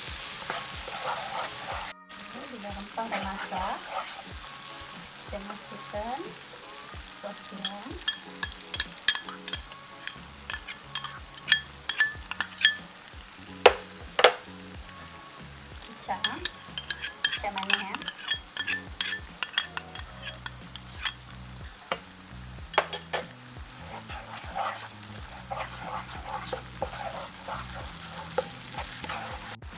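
A chilli sauce base with curry leaves, garlic and shallots sizzling in hot oil in a pan while it is sautéed. A slotted plastic spatula stirs it, scraping and knocking against the pan in irregular strokes.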